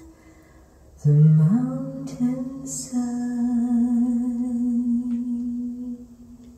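A woman singing a slow ballad from a record played on a hi-fi: a held note fades, then about a second in she enters low, slides up and holds a long note with vibrato that fades near the end.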